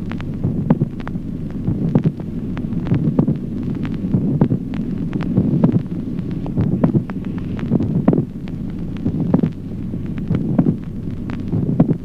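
Recorded heart sounds with a late systolic click, beating steadily about once every 1.2 seconds. In each beat a dull second heart sound is closely preceded by a prominent, resonant extra click. A low steady hum runs underneath.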